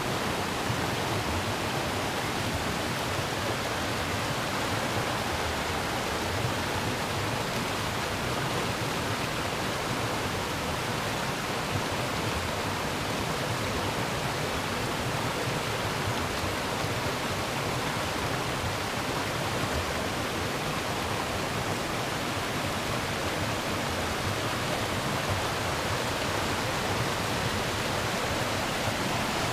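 Mountain creek rushing over rocks and small cascades: a steady, even rush of water.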